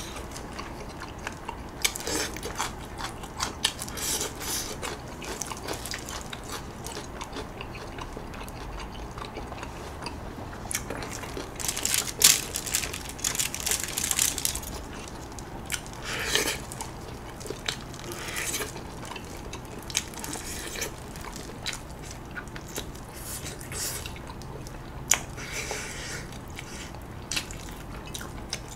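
Close-miked eating of grilled chicken: irregular biting, chewing and wet mouth sounds, with rustling as gloved hands pick pieces off the foil-lined tray, loudest about 12 to 14 seconds in.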